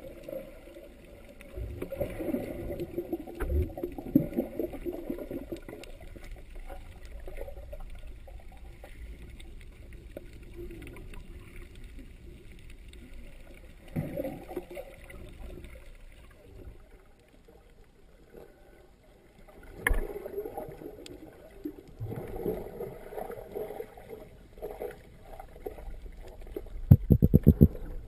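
Muffled underwater water movement heard through a sealed GoPro dive housing: uneven sloshing and gurgling surges as the camera is swept through the water. A quick run of clicks comes near the end.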